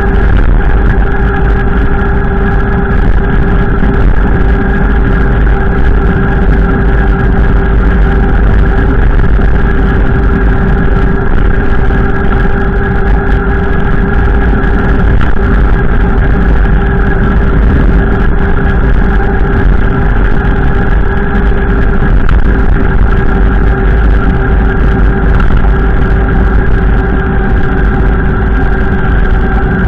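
Strong wind buffeting the microphone, a loud steady rumble, with a steady hum of a few even tones over it.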